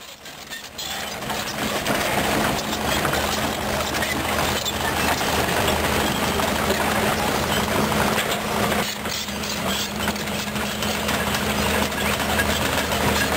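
Volvo EC210B excavator's diesel engine running steadily while the machine digs, with a continuous clatter of small knocks from the working machinery. The sound fades in over the first two seconds, then holds at an even level.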